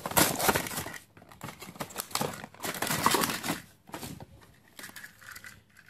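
Clear plastic and cardboard toy-train packaging crinkling and crackling as it is pulled open, loudest in bursts during the first three and a half seconds, then softer rustling.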